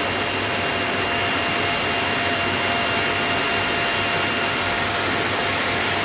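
C.R. Onsrud 381G18CD CNC router running steadily: an even rushing noise with a steady whine in two fixed pitches.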